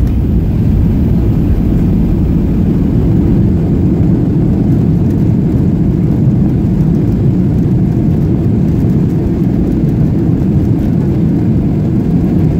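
Steady low rumble inside the cabin of a Boeing 737-300 rolling out on the runway after landing: its CFM56-3 engines and the wheels on the runway.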